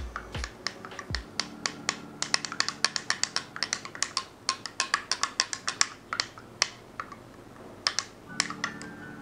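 Long metal bar spoon clinking against a small glass beaker while stirring cocoa: quick, irregular clinks, about four or five a second through the middle, thinning out to a few near the end.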